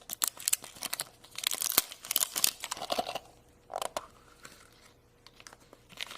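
Wrapper crinkling and tearing as a Shopkins surprise egg is unwrapped by hand: a quick run of crackles through the first few seconds, thinning out near the end.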